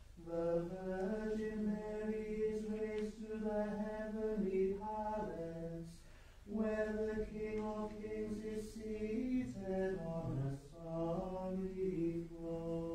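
Unaccompanied liturgical plainchant: voices singing slow, long-held notes that step up and down, with a short breath break about six seconds in.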